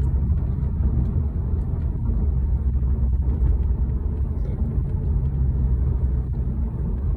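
Steady low rumble of a car being driven on the road, heard from inside the cabin: engine and tyre noise.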